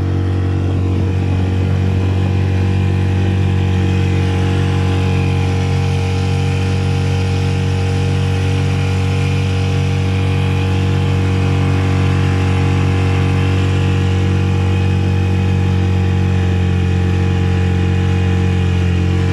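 Hidea 5 hp outboard motor running at a steady high speed, pushing an inflatable boat at full throttle, with an even, unchanging engine pitch.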